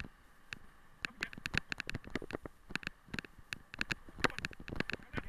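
Rapid, irregular clicks and knocks from about a second in: a dog-pulled rig and its mounted camera rattling and jolting over a rough dirt track.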